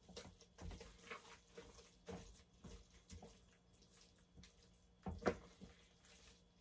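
Wooden spoon stirring shredded pork in barbecue sauce in an electric pressure cooker's pot: faint, irregular stirring strokes, with one louder stroke about five seconds in.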